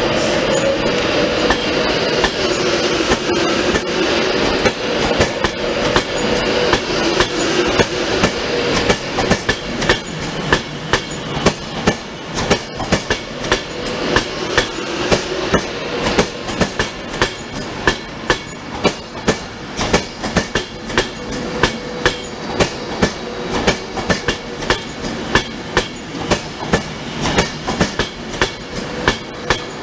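Class 390 Pendolino electric train pulling slowly out of the station with a steady electric hum, strongest in the first several seconds. A regular clickety-clack of its wheels over the rail joints follows, about one and a half clicks a second.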